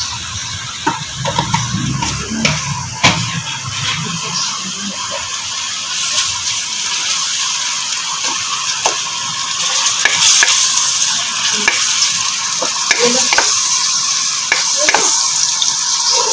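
Sliced onions and garlic-ginger paste sizzling in hot oil in a metal karahi, stirred with a wooden spatula that scrapes and knocks against the pan in short clicks. The sizzle grows louder about ten seconds in.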